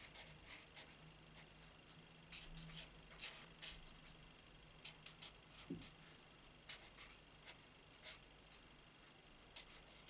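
Faint, irregular short strokes of a Stampin' Blends alcohol marker's tip scratching on cardstock as small leaves are coloured in.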